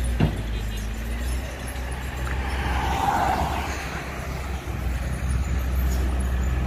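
A dump truck's diesel engine runs with a low, steady rumble. A motorbike passes close by, loudest about three seconds in.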